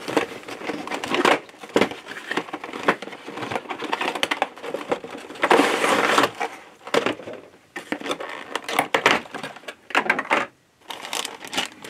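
Cardboard model-train box being opened and its clear plastic packing tray and plastic bag handled: crinkling, crackling and rustling with small clicks, loudest about halfway through, with a brief pause near the end.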